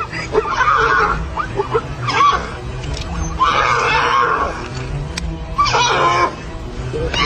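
A wild animal's harsh calls in about four rough bursts, each half a second to a second long, over background music.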